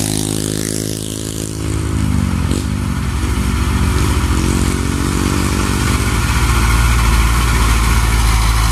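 Diesel engine of a loaded Mitsubishi Fuso light dump truck running as the truck approaches and passes close, growing louder from about two seconds in. A motorcycle passing is heard at the start.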